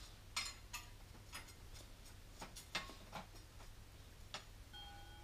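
Faint, scattered metallic clicks and ticks, a few with a short ring, from a bicycle's sprocket and chain being handled and test-fitted on the rear wheel.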